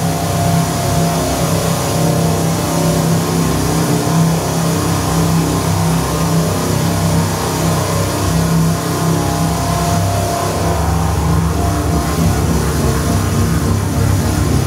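Modular synthesizer performance of feedback and manipulated sound recordings: a loud, steady low drone under a dense, noisy texture, with a deeper rumble joining about ten seconds in.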